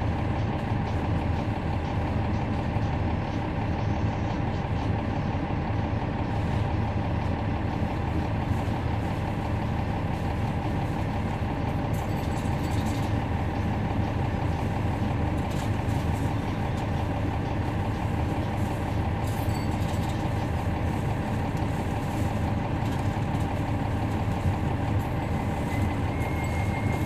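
Cummins ISL9 diesel engine of a NABI 40-SFW transit bus, heard from on board, running steadily at an unchanging pitch, with a few faint clicks and rattles.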